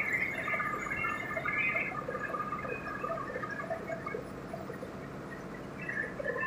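Coal washing plant conveyors running: a steady low rumble with a scatter of short, irregular high squeaks and chirps over it.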